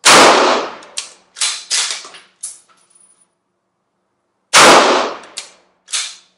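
Two shots from a Rigby Highland Stalker bolt-action rifle in 7x57 Mauser, about four and a half seconds apart, each dying away in a short ring. After each shot come several quick metallic clacks of the Mauser bolt being worked to eject the case and chamber the next round.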